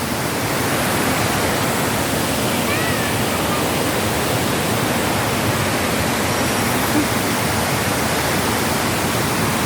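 Waterfall roaring, a steady, loud rush of falling water with no let-up.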